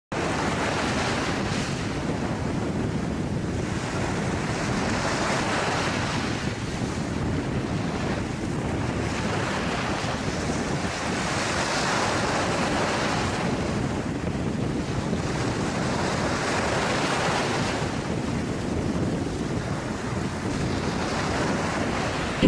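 A steady rushing noise that swells and ebbs every few seconds, like surf breaking.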